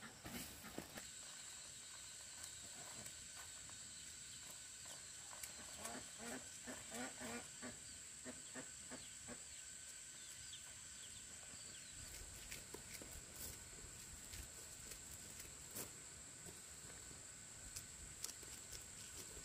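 Faint, steady high-pitched chirring of insects. A run of soft short sounds comes about six to nine seconds in.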